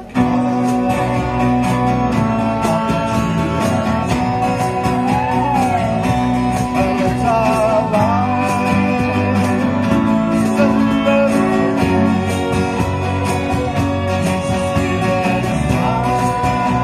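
A folk band playing live through a small PA: fiddle melody with sliding notes over strummed acoustic guitars and a steady bass line.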